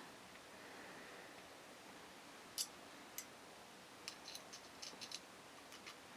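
Near silence broken by a few faint, scattered light clicks: small steel pistol parts and a tool tapping together as the sear pin is lined up in the frame.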